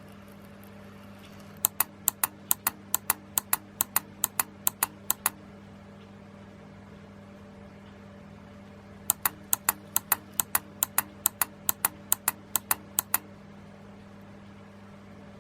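Relays on a model-railway car-retarder control board clicking in two quick runs of about four seconds each, some four or five sharp clicks a second, as they switch the retarder's drive. A steady low electrical hum runs underneath.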